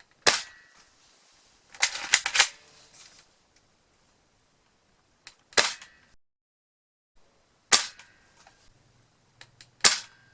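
Spring-powered air-cocking airsoft rifle firing single shots: four sharp reports, each with a short ring after it, one near the start, one about halfway and two near the end. A quick run of sharp knocks comes about two seconds in.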